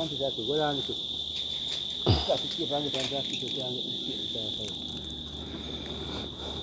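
Crickets trilling in one steady high-pitched drone, with a single sharp knock about two seconds in and faint voices in the background.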